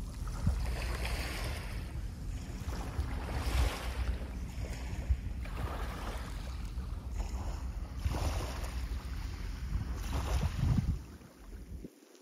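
Small waves washing onto a pebble beach, a hissing swash over the stones every two or three seconds, with wind rumbling on the microphone. The sound falls away about a second before the end.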